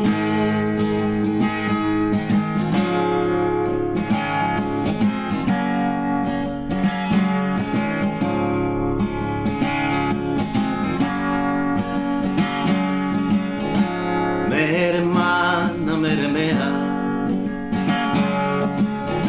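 Steel-string acoustic guitar strummed in a steady rhythm, playing an instrumental break between verses of a folk song.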